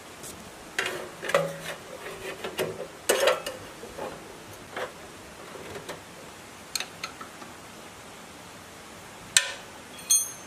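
Scattered clicks and knocks of metal parts being handled and fitted on a Changchai ZS1115 single-cylinder diesel engine during reassembly. A flurry of knocks comes in the first few seconds, then a quieter stretch, then a couple of sharper knocks near the end; the engine itself is not running.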